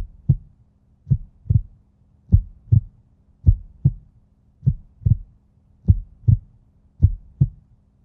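Heartbeat sound effect: paired low lub-dub thumps repeating evenly about every 1.2 seconds, over a faint steady hum.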